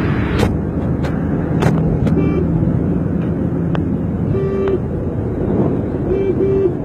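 Engine and road noise from inside a vehicle moving at highway speed. A horn sounds in short toots about four and a half seconds in and twice more near the end.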